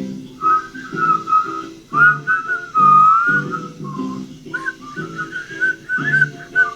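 A whistled melody over plucked guitar chords: the whistle wanders up and down in short phrases while the guitar keeps a steady, bouncy rhythm.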